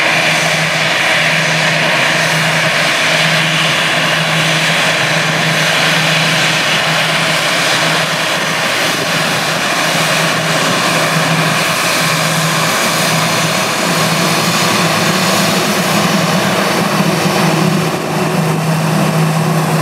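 Airbus A320-family airliner's turbofan jet engines running at taxi power as the jet rolls close past. A steady, loud engine rush carries a high whine and a low hum that beats on and off.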